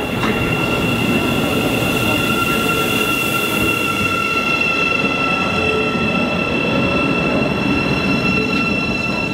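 Thameslink Class 700 electric multiple unit pulling into a station platform: steady running rumble with a high whine of several steady tones, which dies away near the end as the train comes to a stand.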